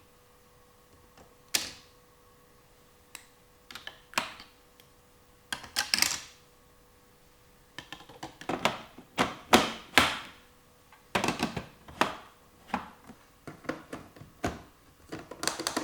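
Small plastic toy pieces clicking and clacking as they are handled and set down, in irregular taps with a few short rustles, quiet for a couple of seconds near the start and busiest in the second half.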